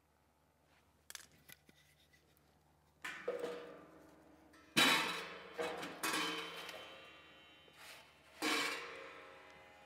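Split firewood logs knocking against a stainless steel fire pit as they are set inside. There are several knocks, the loudest about five seconds in, and each leaves the steel ringing briefly.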